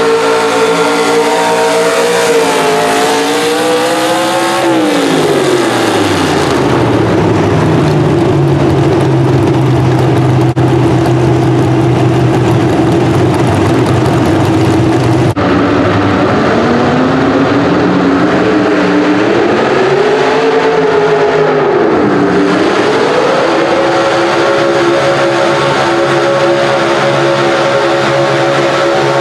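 Pro stock mini pulling truck engine running at high RPM under load as it pulls the sled, then dropping off to a low steady idle about five seconds in. After an abrupt cut, a second pro stock mini truck's engine revs up and down and then holds steady at high RPM while it pulls.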